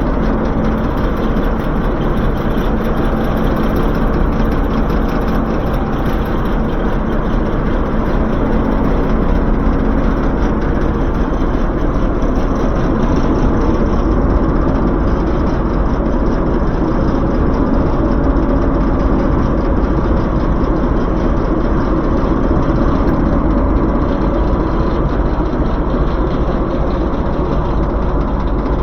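Diesel locomotive engine idling steadily, heard close.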